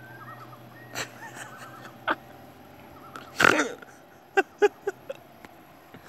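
Common loons calling faintly: a wavering trill in the first couple of seconds, a few short sharp sounds, the loudest about three and a half seconds in, and a quick run of four short clipped calls near the end.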